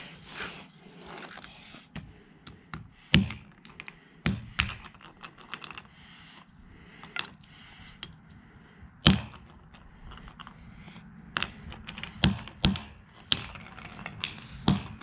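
Claw hammer striking a small piece of a broken Bluetooth speaker on concrete: sharp separate knocks, a few seconds apart at first and coming quicker near the end.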